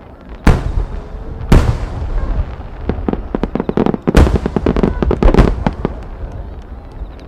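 Aerial firework shells bursting overhead. Two loud booms come about a second apart, then a rapid string of overlapping bangs about halfway through, which thins out near the end.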